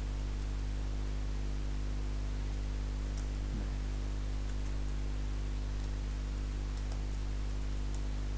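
Steady electrical hum with hiss from the recording chain, and a few faint clicks of computer keys as text is typed.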